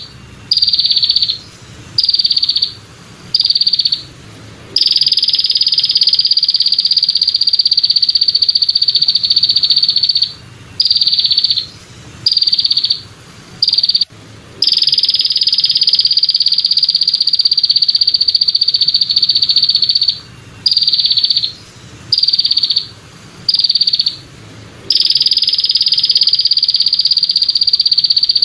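Belalang kecek, a green katydid, stridulating: a loud, rough, high buzzing song of about four short buzzes followed by one long buzz of about five seconds, repeated three times.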